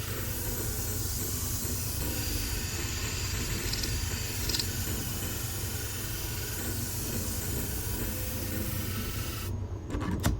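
Curved grooming shear blade being ground on a motorized sharpening wheel: a steady hissing grind over the motor's hum. The grinding cuts off abruptly about a second before the end while the motor keeps running, followed by a sharp click.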